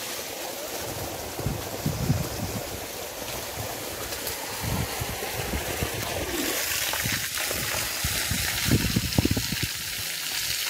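Water running steadily from a garden hose, with a few dull thumps, the loudest cluster near the end.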